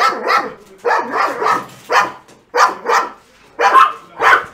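Dogs barking loudly and repeatedly, about eight sharp barks at roughly two a second.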